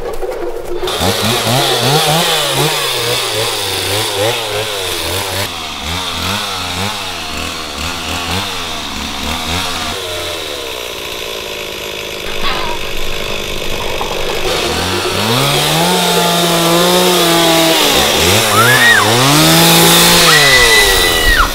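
Chainsaw engine revving over and over, its pitch rising and falling in quick surges. Near the end it revs up harder twice, with a high held tone over the last second or so.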